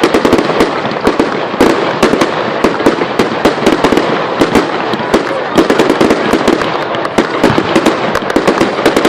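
Fireworks display in a dense barrage: many sharp bangs and cracks a second over a steady crackle, with no let-up.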